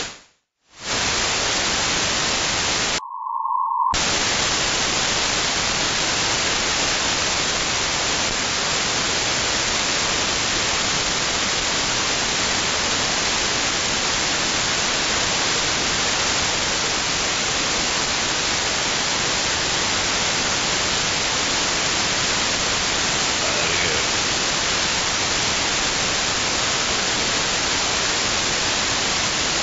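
Steady static hiss from an RTL-SDR dongle receiver (RTL2832U + R820T2) with no station coming through. The audio cuts out briefly just after the start, and again around three seconds in, when a short tone sounds before the hiss returns.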